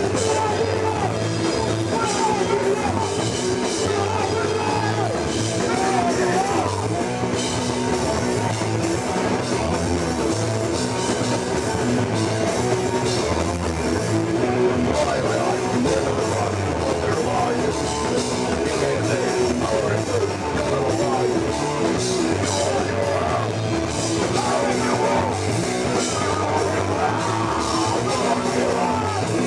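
A punk band playing live: distorted electric guitar, bass and drum kit playing a fast song.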